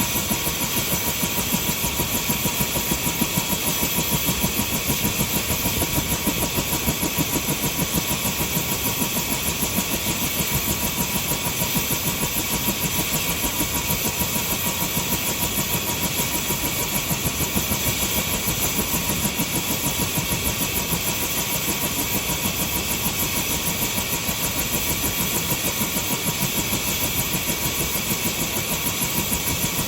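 Helicopter running steadily after start-up: a steady whine with fixed high tones over a fast, even beat.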